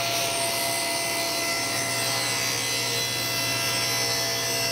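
Table saw running at speed and ripping through a plywood board: a steady hum with the hiss of the blade cutting wood.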